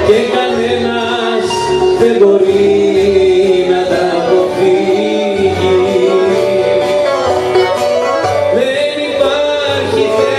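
Live Greek band performing: a voice singing into a microphone over acoustic guitar, bouzouki and accordion.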